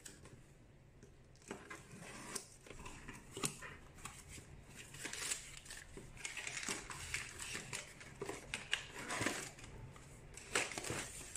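Cardboard parcel being unpacked by hand: packing tape slit with a utility knife, then, from about a second and a half in, the flaps pulled open and crumpled paper packing rustling and crinkling, with scattered light knocks as items are lifted out.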